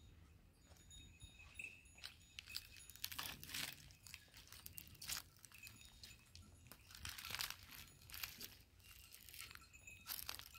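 A grazing flock and a donkey: irregular soft tearing and crunching of mouthfuls of grass and steps on stony ground, with a faint bell tinkling now and then.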